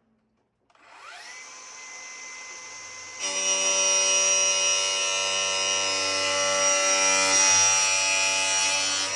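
Electric power tool spinning up, running steadily, then much louder with a shrill many-toned whine from about three seconds in as it bears on the sheet-metal duct, and winding down at the end.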